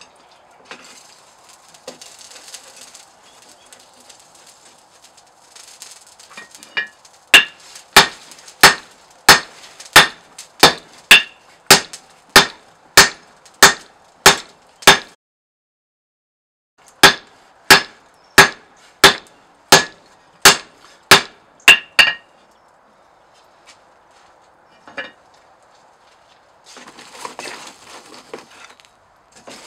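Hand hammer striking red-hot leaf-spring steel on an anvil: two runs of loud ringing blows at a steady beat of about one and a half a second, roughly fourteen and then about ten, upsetting the bar thicker before the eye is punched. Before the blows and again near the end, the forge fire hisses.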